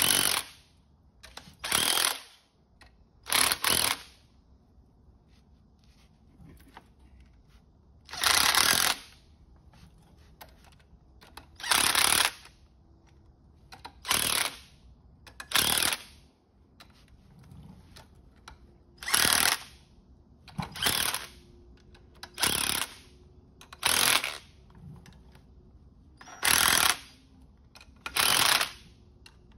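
Cordless power driver run in about a dozen short bursts, each under a second, with pauses between, turning the forcing screw of a puller to draw the pinion gear and bearing out of a Ford Model A differential housing.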